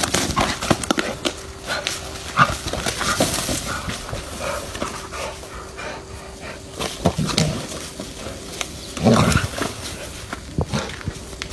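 Dog fighting a snake: short barking outbursts, the loudest two about seven and nine seconds in, with scuffling and clicking noises between.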